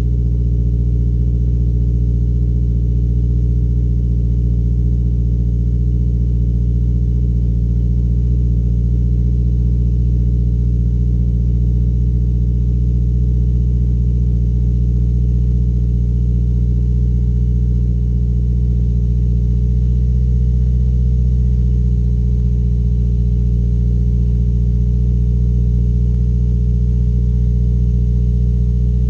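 Subaru Crosstrek's flat-four engine idling steadily through a Nameless Performance 5-inch muffler: an even, low drone from the exhaust with no revving.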